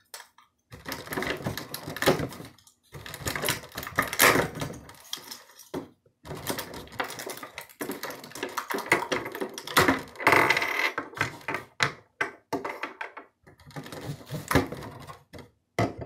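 Hands rummaging through a Smart Circuits electronics kit box: small plastic parts, wires and packaging clicking, rattling and rustling in irregular bursts with short pauses.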